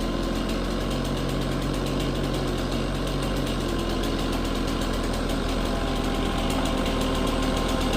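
A diesel machine engine idling steadily, its note changing slightly about four seconds in.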